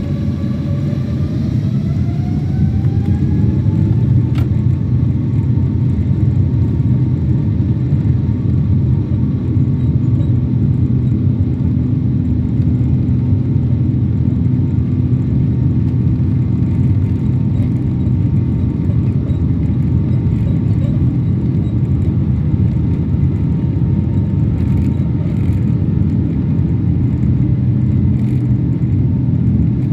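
Jet airliner engines heard from inside the cabin spooling up for takeoff: a whine rises over the first few seconds, then holds steady over a heavy rumble as the plane rolls down the runway.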